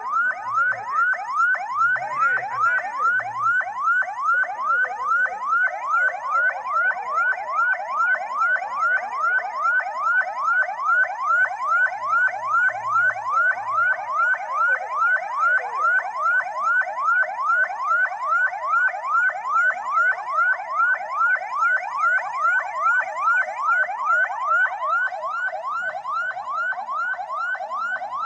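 Electronic siren sounding without a break, a quick falling chirp repeated about twice a second. It becomes a little quieter near the end.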